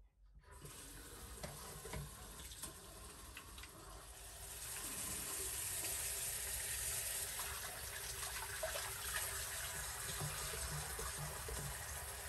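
Water running from a kitchen or bathroom tap into a sink, a steady splashing flow that grows stronger about four and a half seconds in, with a few light clicks.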